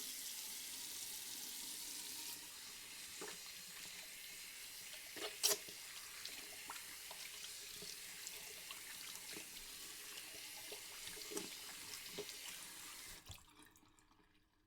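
Water running from a tap into a sink: a steady hiss with scattered small clinks and splashes, one louder clink about five and a half seconds in. It starts abruptly and fades out about a second before the end.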